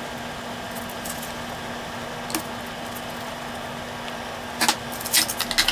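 Steady low workshop hum with a few isolated light clicks, then a quick run of small clinks and taps near the end as things are handled and set down on a workbench.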